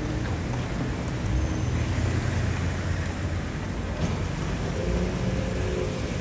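Small-town high street ambience: road traffic passing, a vehicle's low engine rumble heaviest for the first few seconds, over a steady wash of street noise.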